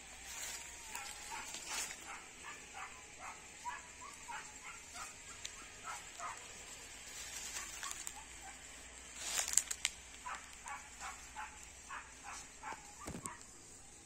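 Short animal calls in quick succession, about three a second, running through most of the stretch. About nine and a half seconds in there is a brief, louder burst of noise, and a low knock follows near the end.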